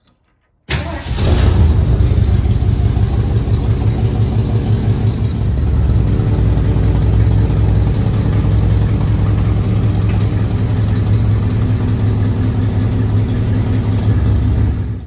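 1973 Ford Mustang Mach 1's V8 engine, coming in suddenly about a second in, running a little higher for the first seconds, then idling steadily with an even pulse. It cuts off suddenly at the end.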